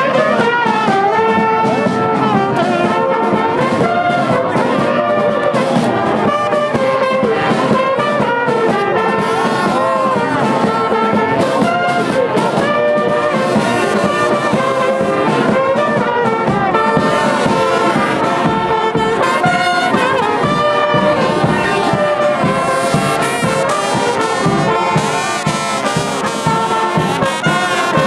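Brass band playing, horns carrying the melody over a steady beat.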